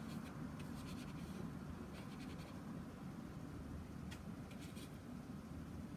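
Faint swishing and scratching of a soft round watercolour brush stroking wet paint across paper, in a few short clusters of strokes, over a low steady hum.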